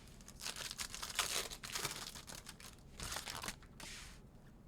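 Crinkling and tearing of a trading-card pack's wrapper as it is opened, in two rustling spells, the longer one first.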